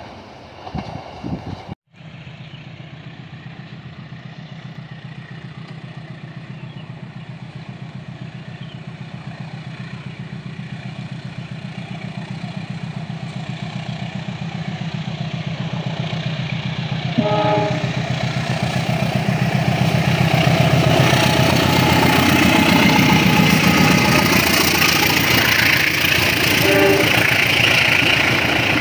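Diesel-electric locomotive hauling a passenger train approaches with a steady engine drone that grows louder, and gives a short horn blast a bit past the middle. The passenger coaches then pass, rumbling and clattering over the rails.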